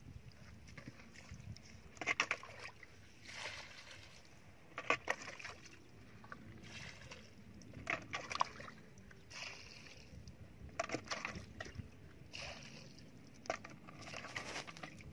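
Muddy water sloshing and splashing as a plastic bucket is dipped and dragged through shallow mud, in short separate bursts with a few sharp knocks.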